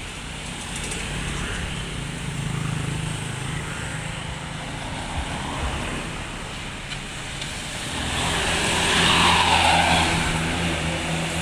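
Roadside traffic: a vehicle engine hums steadily. About eight seconds in, a vehicle passes close, its tyre and wind noise swelling and then fading.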